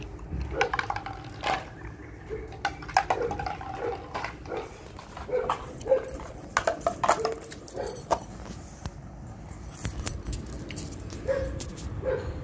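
Beagle giving short, scattered barks and yips while playing with a rubber ball, mixed with sharp clicks on the tile floor.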